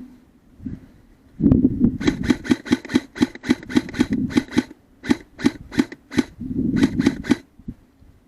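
Airsoft gun firing a rapid string of single shots, about four a second, in three groups with brief pauses between them, stopping about seven seconds in.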